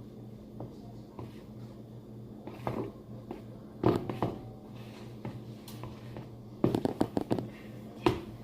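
Spoon stirring fluffy slime made with shaving cream in a plastic container: irregular squishes and scrapes in short clusters, over a steady low hum.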